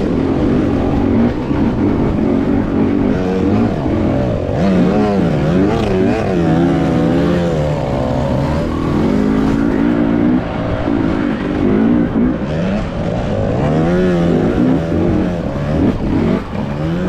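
Single-cylinder two-stroke engine of a 2022 Husqvarna TE250i enduro bike running under load on a trail, its pitch rising and falling again and again as the throttle opens and closes.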